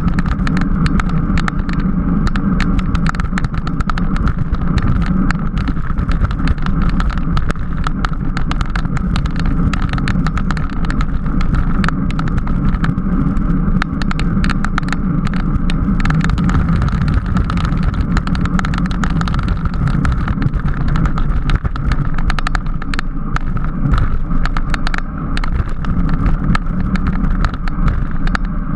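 Steady wind rush and road rumble on a camera riding along with a racing bicycle at speed, with constant small rattles and ticks from the bike and road surface.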